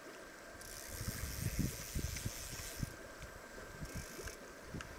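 Fly reel's drag ratchet buzzing as a hooked Atlantic salmon runs and pulls line off the reel, for about two seconds and then again briefly near the end, over low rumbling handling or wind noise.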